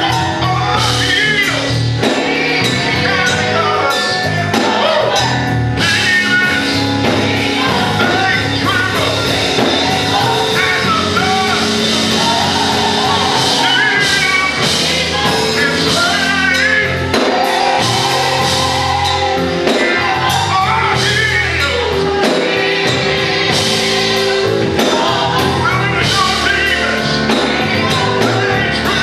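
Live gospel music: a small church band with drum kit and electric bass plays while a man sings into a microphone over the loudspeakers.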